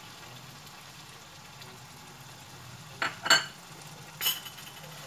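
Minced meat and tomato masala sizzling faintly in a nonstick pan while a cup of yogurt is added, with three sharp clinks of kitchenware against the pan in the second half.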